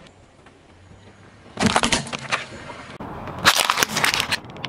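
A car tyre crushing a plastic game cartridge, which cracks and snaps in a quick cluster about a second and a half in. After a cut, wrapped candies crack and crunch under the tyre in a second, louder cluster.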